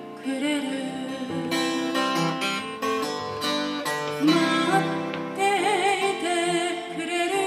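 A woman singing a slow song, some held notes wavering with vibrato, to her own strummed acoustic guitar.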